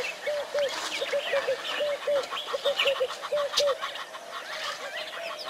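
Wild birds calling: a run of short, low, arched notes repeated in quick pairs, about three to four a second, that stops about four seconds in, over scattered higher chirps and whistles from other birds.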